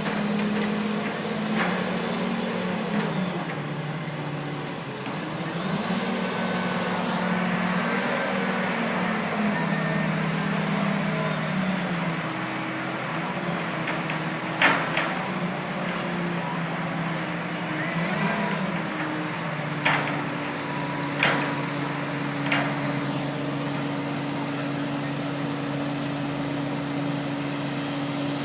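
Crane engine running, its speed stepping up and down, with a few sharp knocks in the second half.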